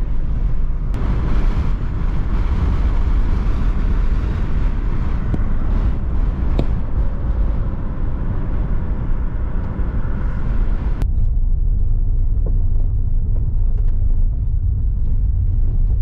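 Road and wind noise inside a moving car: a steady low rumble, with a hiss of wind and tyres over it that cuts off suddenly about eleven seconds in, leaving the rumble.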